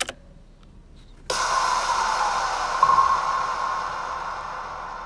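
A click, then a hiss of noise from a rough, unmixed music track being played back: it starts suddenly about a second in, slowly fades over nearly four seconds, and stops abruptly near the end.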